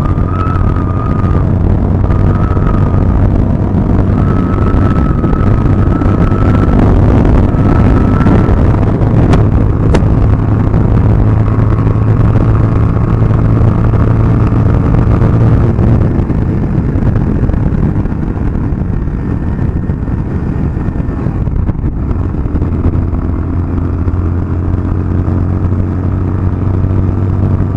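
Motorcycle engine running steadily at a cruise of about 65 km/h, with wind and road noise over the microphone.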